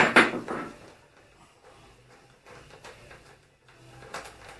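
Hand nut driver working an 8mm bolt loose on the motorcycle: a brief metallic clatter at the start, then faint scattered clicks and scrapes.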